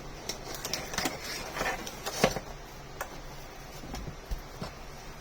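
Hands handling the packaging of a boxed airsoft pistol: scattered light clicks and rustling, with one sharper click a little over two seconds in.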